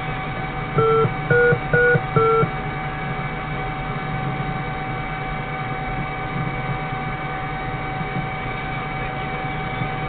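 Four short electronic beeps in quick succession about a second in, the middle two slightly higher in pitch than the first and last, over a steady electrical hum and a constant thin whine from the ground-station electronics.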